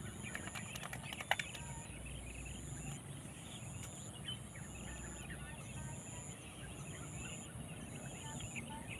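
Outdoor ambience of scattered small bird chirps over a steady, high-pitched insect buzz, with a second high buzz pulsing about once a second. A single sharp click sounds about a second in.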